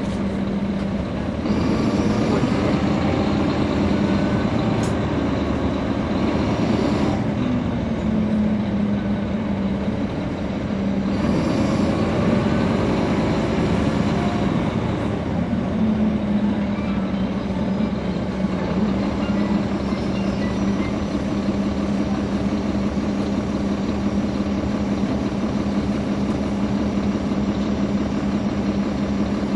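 A NABI 416.15 transit bus's Caterpillar C13 inline-six diesel, heard from inside the bus. The engine runs with a steady hum, growing louder and rising in pitch as the bus pulls ahead about two seconds in and again about eleven seconds in, then settling back to the steady hum.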